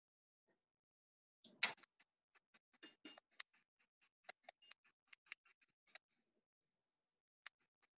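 Light, irregular clicks and taps of a hand sprinkling pepper over a plate of scrambled eggs. There are about twenty in quick succession, the first the loudest, then one more click near the end.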